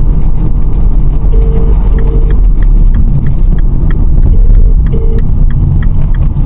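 Car interior while driving: a steady low rumble of the road and engine, with faint regular ticking about three times a second and four short, even beeps.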